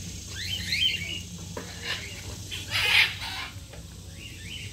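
High chirping and squawking animal calls, short and rising in pitch, in several quick runs, with the loudest and harshest about three seconds in, over a steady low hum.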